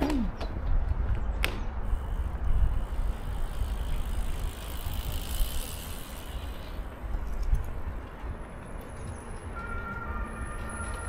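City street noise: a steady low traffic rumble with vehicles passing. Near the end a steady tone with several pitches sets in.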